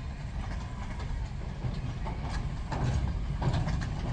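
Train rolling on its rails: a steady low rumble with sharp wheel clicks at the rail joints, growing louder about three seconds in.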